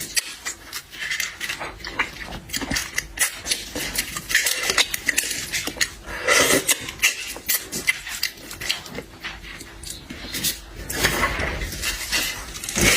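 Close-up eating sounds of a person chewing and slurping red shrimp: wet mouth smacks, sucking and small clicks, coming in irregular clusters.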